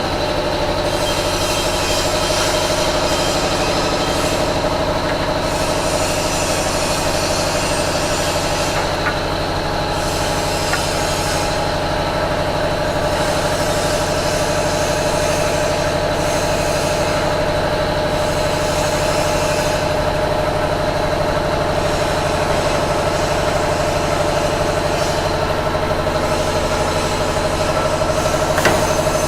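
Double-head aluminium cutting saw with its blade motors running steadily without cutting: a steady electric-motor hum with a high, even tone from the spinning blades.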